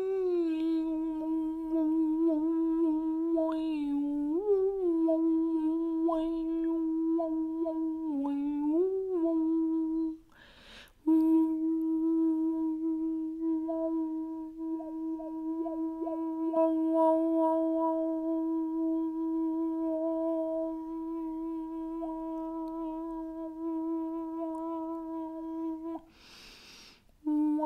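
A woman humming a long sustained note, mostly on one pitch, as a vocal toning sound. In the first ten seconds it has a few brief upward slides. She breaks off to breathe about ten seconds in and again near the end.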